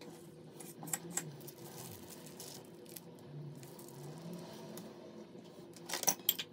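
Faint clinks and light scraping of a metal spoon being handled, with a quick cluster of sharper clinks near the end.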